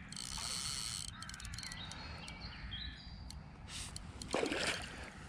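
Wind rumbling on the microphone, with scattered bird calls and one short, loud, noisy burst a little after four seconds in.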